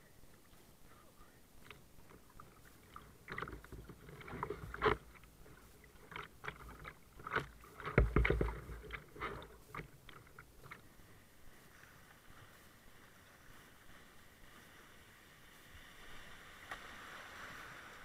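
Kayak paddling: paddle splashes and knocks against the plastic hull, the loudest a heavy thump about eight seconds in. After that a steady rush of moving water builds toward the end.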